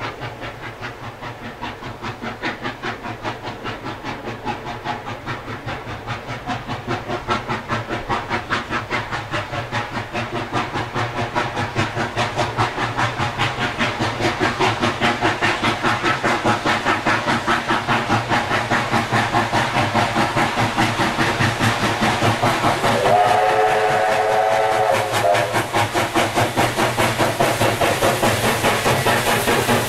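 New South Wales 36 class steam locomotive 3642 working hard up a steep grade: a steady, rapid beat of exhaust chuffs that grows louder as it approaches. About two-thirds of the way through, its steam whistle sounds once for about two seconds, a chord of several tones.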